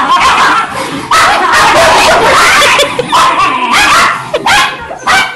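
Several dogs barking and yipping excitedly at play, an almost continuous overlapping din that breaks into separate sharp yelps near the end.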